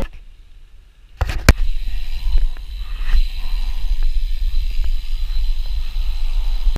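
Riding a dirt-jump hardtail bicycle on slick tyres over asphalt: wind buffets the action camera's microphone as a steady low rumble, with tyre hiss and small clicks and rattles from the bike. A couple of sharp knocks about a second in, the loudest sounds here.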